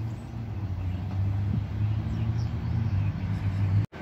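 Steady low rumble of road traffic in a city, with a few faint chirps from small birds. It cuts off suddenly near the end.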